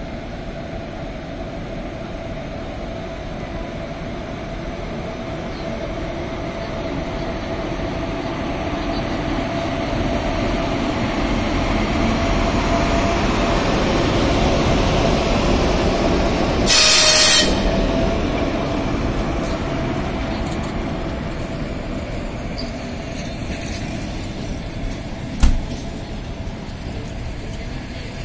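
Electric locomotive and its passenger coaches rolling past, a steady rumble of wheels on rail that builds as the locomotive draws level and then eases as the coaches follow, with a steady whine running under it. A short, loud hiss cuts in a little past halfway, and a single sharp knock comes near the end.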